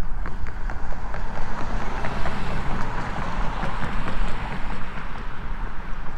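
Wind buffeting the microphone with an unsteady low rumble, over faint regular footsteps of someone walking.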